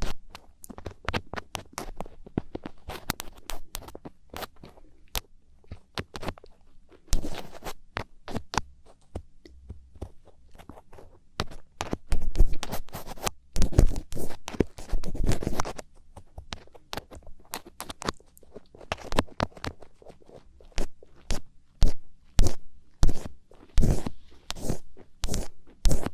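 Thin ear pick scratching and scraping close up inside an ear, in short irregular strokes, with a run of longer, louder scrapes around the middle.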